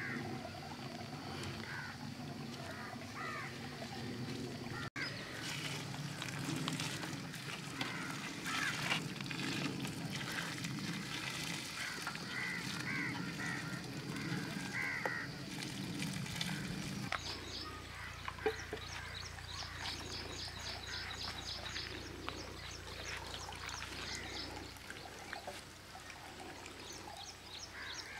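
Poultry calling over and over, then, after a cut, a fast run of high chirps.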